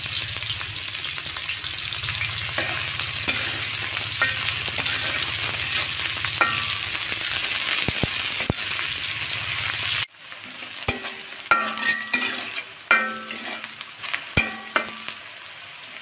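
Sliced onions sizzling in hot oil in a metal kadai while a metal spatula stirs them. About ten seconds in the sizzle drops suddenly quieter, and the spatula scrapes and clinks against the pan several times.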